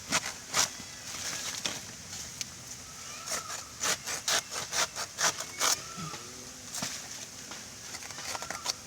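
Repeated, irregular chopping strikes of a blade into the soft trunk of a banana plant, coming quickest in the middle.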